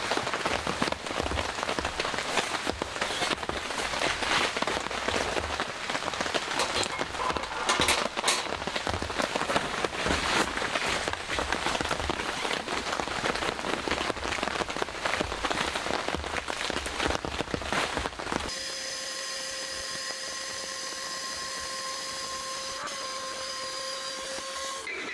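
Steady rain falling, with scattered louder drop strikes. About 18 seconds in it cuts off abruptly, giving way to a steady, even hum with a fixed pitch.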